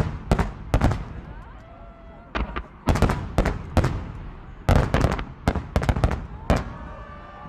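Fireworks bursting in quick clusters of sharp bangs, about fifteen in all, each followed by a short echo.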